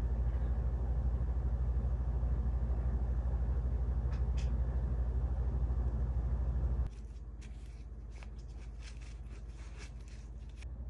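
A steady low hum for about the first seven seconds, which then drops away. After that comes a run of quick, irregular rustles and snuffles as a border collie sniffs and noses over a fabric backpack.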